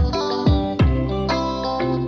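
Background music led by guitar, with a few drum hits in the first second.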